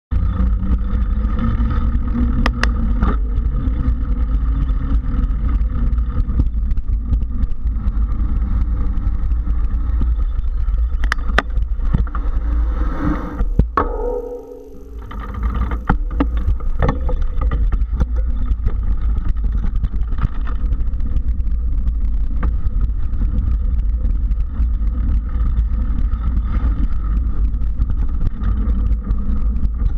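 Mountain bike riding a sandy, rough trail: wind buffeting the camera's microphone over the rumble of the tyres, with scattered sharp clicks and rattles from the bike over bumps. The noise dips briefly about halfway through as the bike slows, then picks up again.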